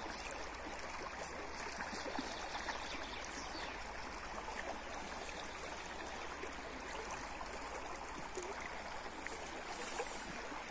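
Small river running steadily over a shallow, fast riffle: an even rush of flowing water.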